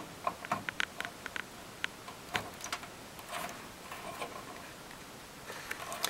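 Small plastic clicks and ticks of a front-panel audio cable's connector being handled and pushed onto the motherboard's pin header: a quick cluster in the first second and a half, then a few scattered ones.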